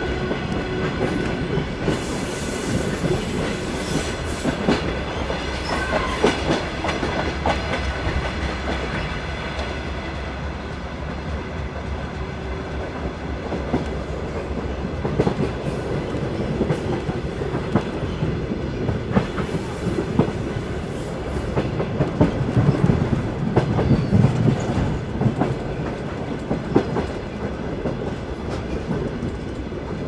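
Train running on the rails: a steady rumble with an irregular clickety-clack of the wheels passing over rail joints.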